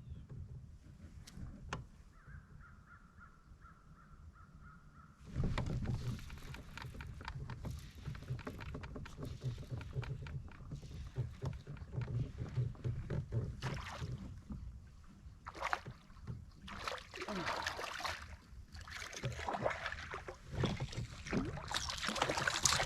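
Water splashing and handling noise around a fishing kayak, in irregular bursts that start suddenly a few seconds in and grow louder near the end.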